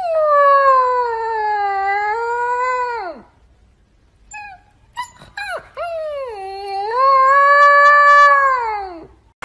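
Husky puppy howling: two long howls of about three seconds each, each sagging in pitch and falling off at the end, with a few short yips in the pause between them.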